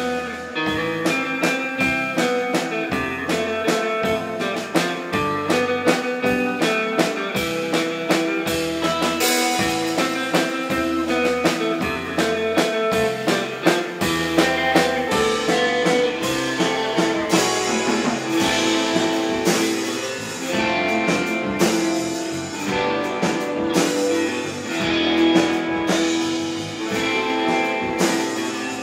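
Live instrumental rautalanka: an electric guitar plays the lead melody over a drum kit keeping a steady beat, with repeated low bass notes underneath.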